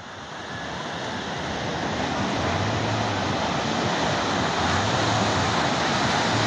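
Ocean surf breaking and washing up on a sandy beach: a dense, steady rush that fades in over the first couple of seconds and then holds.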